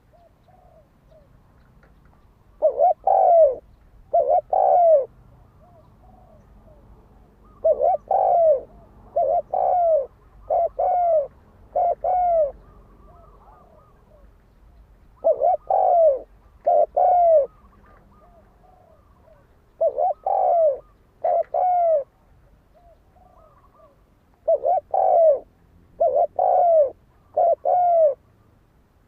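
Spotted dove cooing: a male's song of repeated phrases, each two to four loud, arching coos, with pauses of a few seconds between phrases and softer notes in the gaps.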